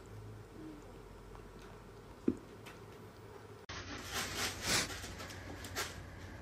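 A cat digging and scratching in the litter of a plastic litter box: a few gritty rustling scrapes starting about four seconds in. Before that there is a low hum and one short sharp tap.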